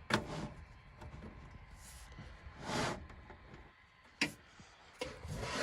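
Handling noises of cables being plugged into the back of a desktop PC: a few sharp clicks and short rustles.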